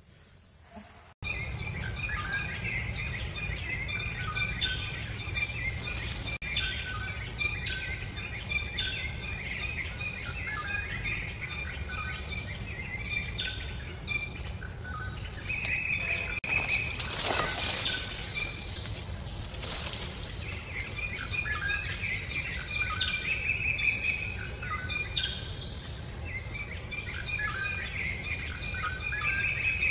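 Birds chirping and calling over and over above a steady low rumble, beginning abruptly about a second in, with two brief louder rushes of noise about seventeen and twenty seconds in.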